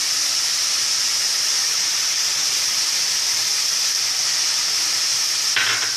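Onion and tomato masala with spice powders frying in oil in a pan: a steady sizzling hiss.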